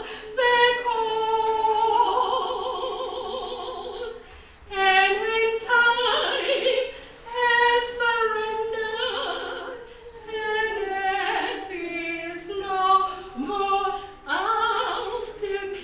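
A woman singing a gospel song solo into a microphone, in long held notes with a wide vibrato and short breaks for breath between phrases.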